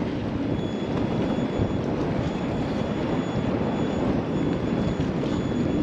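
Steady wind buffeting the microphone, a continuous low rumbling noise.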